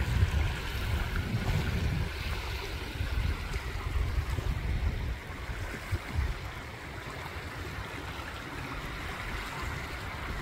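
Wind rumbling on the microphone over the steady wash of surf on a beach; the rumble eases about halfway through.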